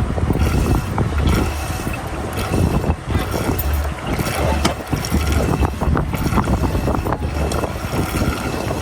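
Wind buffeting the microphone on a small boat, an uneven gusty rumble, with scattered light knocks and splashes, like water slapping the hull and gear shifting.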